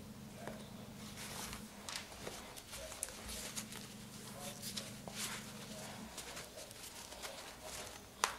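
A cloth bundle being handled and tied up with string on a table: irregular soft rustles, rubs and small taps, with one sharp click near the end, over a steady low hum.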